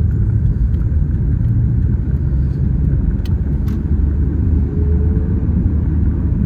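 Steady low rumble of a car's engine and tyres heard from inside the cabin while driving, with two faint clicks a little over three seconds in.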